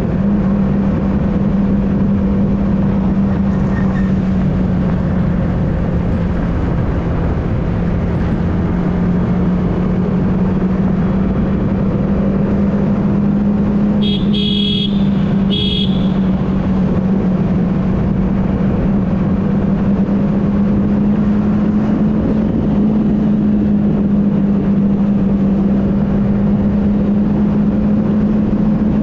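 Motorcycle engine cruising at a steady pitch under wind and road noise, the pitch easing a little at first and creeping up later on. About halfway through, a horn sounds twice in short blasts.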